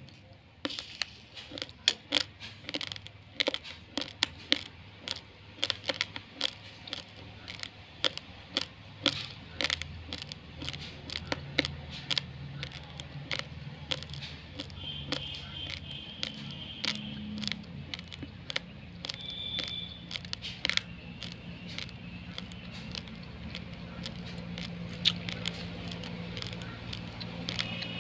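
Crunching of raw rice: quick, irregular, sharp crunches and clicks of hard uncooked grains, several a second, thinning out after about twenty seconds. A low steady hum runs underneath and grows stronger near the end.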